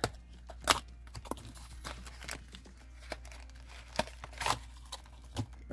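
Cardboard trading-card deck box being handled and worked open by hand: scattered light clicks, taps and crinkly scrapes of the card stock, a few sharper ticks standing out.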